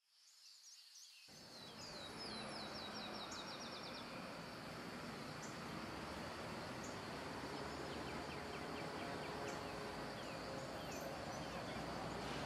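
Outdoor ambience: a steady background hum with small birds chirping, a fast run of falling chirps about two seconds in and scattered chirps later. It fades in over the first second.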